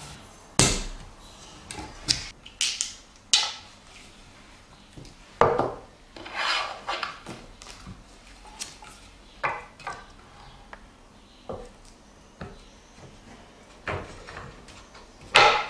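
Wooden frame and plywood parts being handled: scattered knocks, taps and rubs of wood on wood, the loudest about half a second in and just before the end.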